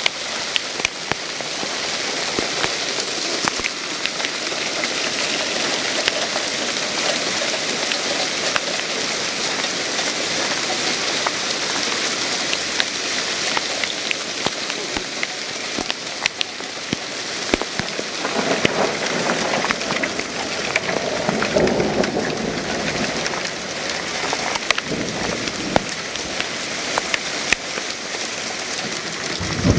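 Hail storm: hailstones and rain pelting pavement and ground, a dense steady hiss with many sharp ticks of single stones striking. A deeper rumble swells in the second half.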